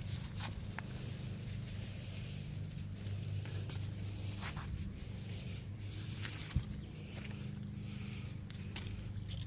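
Heavy breathing close to the microphone, a run of hissing breaths, over a steady low engine hum in the background. One sharp click about six and a half seconds in.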